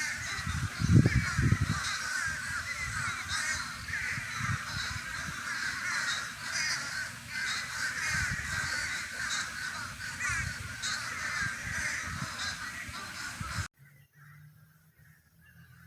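A large flock of crows calling together from a tree, a dense, continuous chorus of many overlapping calls, with a couple of low thumps about a second in. Near the end it cuts off suddenly to a much quieter level with only faint calls.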